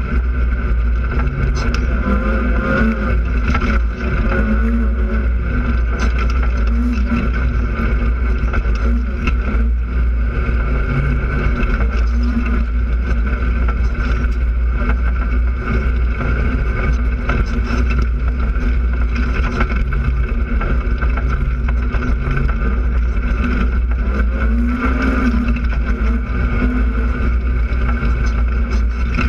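Polaris RZR side-by-side engine running steadily under way, its pitch rising and falling a little with the throttle, over a constant low rumble.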